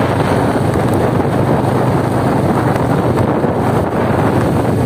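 Wind buffeting the microphone over the steady running noise of a vehicle moving along a concrete road, with no change in pace.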